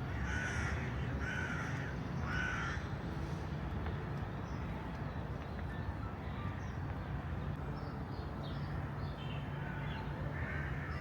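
Crows cawing: three caws in quick succession near the start and more calls near the end, over a steady low hum.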